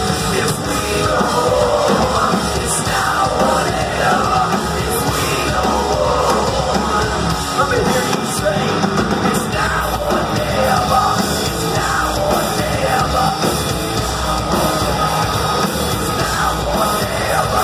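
Live heavy metal band playing through a club PA: distorted guitars, a drum kit and yelled vocals, loud and steady.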